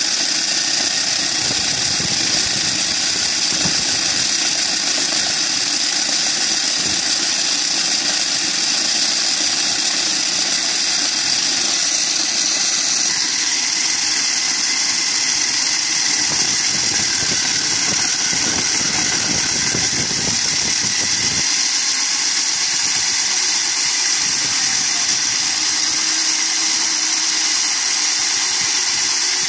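Electric diamond core drill on its rig stand running steadily, its core bit grinding down into a concrete slab. The tone shifts a little about halfway through.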